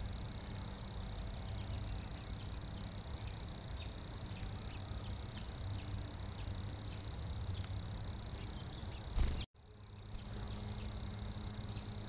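Steady outdoor background: a low rumble under a thin, steady high whine, with faint scattered ticks. About nine seconds in there is a short bump, then the sound cuts out for half a second before returning.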